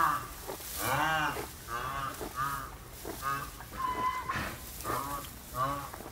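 A run of short honking animal calls, about nine in all, each rising then falling in pitch, coming every half second to a second.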